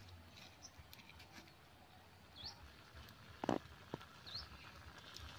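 Faint outdoor background with a small bird giving two short rising chirps, and a few sharp clicks, the loudest about three and a half seconds in.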